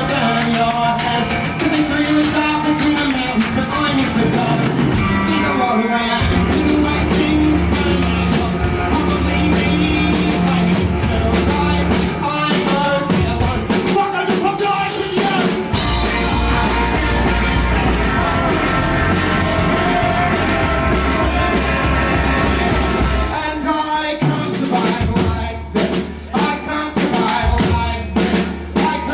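Live rock band playing with full drum kit, bass and guitar. Near the end the music turns choppy, with sharp drum hits and short drops in loudness.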